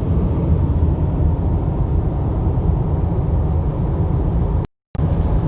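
Steady low rumble of a car driving at highway speed, heard from inside the cabin: engine and tyre noise. It cuts out completely for a split second near the end.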